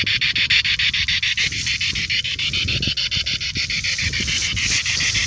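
Spirit box radio sweeping through stations: a steady hiss of static chopped into rapid, even pulses, about eight a second.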